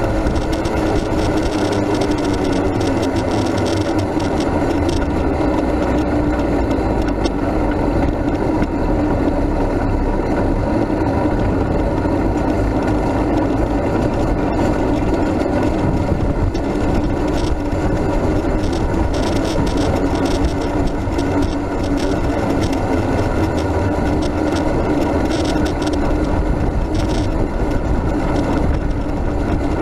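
Road noise of a Max II 6x6 amphibious ATV being flat-towed on pavement: rolling, rattling and wind noise with a steady hum that drops in pitch over the first few seconds and climbs again near the end.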